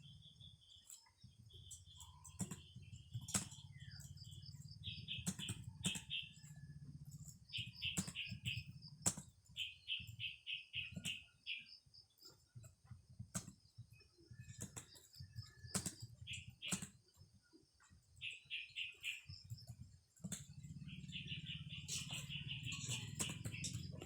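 A bird chirping in short trills of quick notes, repeated every second or two, over scattered sharp clicks and a low hum.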